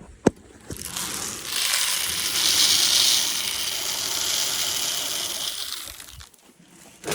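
Two sharp clicks, then water running with a steady hiss for about five seconds that fades out near the end.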